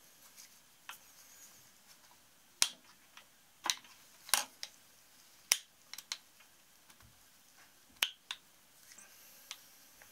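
About a dozen sharp metallic clicks and light taps at irregular intervals, the loudest between about two and eight seconds in. They come from a cast piston being handled and fitted onto the connecting rod of a Yamaha SRX600 single-cylinder engine.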